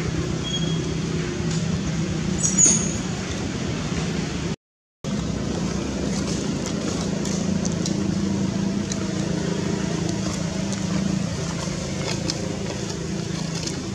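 Steady low drone of motor vehicle traffic running on, with a brief complete dropout about a third of the way in.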